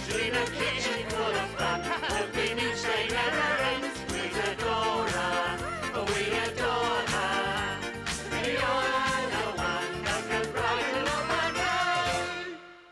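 Closing theme song of a children's TV show, an upbeat tune with a steady beat that fades out near the end.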